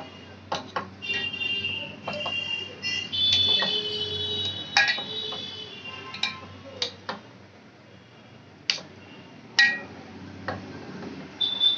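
Steel spoon clinking and scraping against a steel bowl while coating fish pieces in mustard paste: irregular sharp clicks throughout. A high, wavering ringing tone runs for a few seconds in the first half and is the loudest sound.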